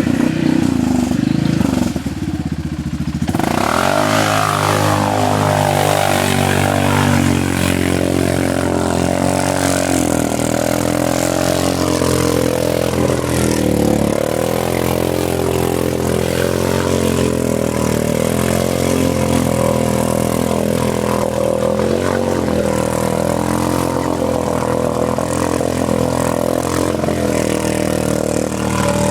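Arctic Cat Mud Pro 700 ATV engine revving hard and working under load on a run through a small hole, its pitch rising and falling with the throttle. It eases off briefly about three seconds in, then climbs steeply.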